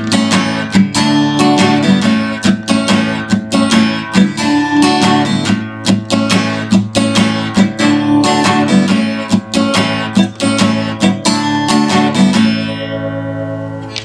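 Acoustic guitar strummed in a steady rhythm of chords; near the end the last chord is left to ring and fade away.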